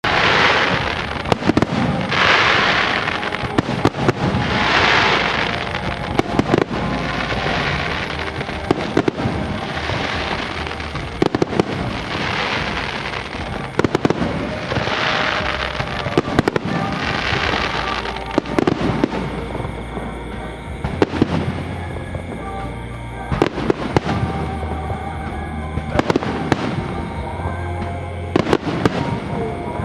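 Fireworks display: repeated sharp bangs and crackling, with hissing swells every two to three seconds during the first two-thirds, over music playing throughout.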